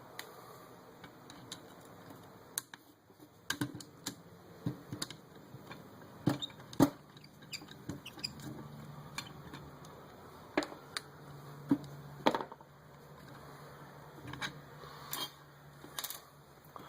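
Irregular light clicks and taps of small metal tools and parts being handled as a small brushless drone motor is taken apart, with one sharper knock about seven seconds in.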